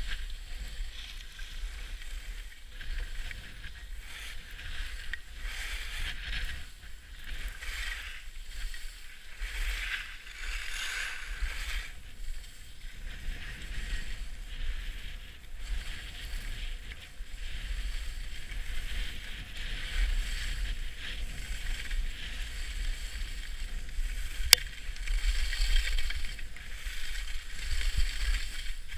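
Skis sliding and scraping over packed snow on a downhill run, a rough hiss that swells and fades with each turn, with wind rumbling on the microphone. A single sharp click about 25 seconds in.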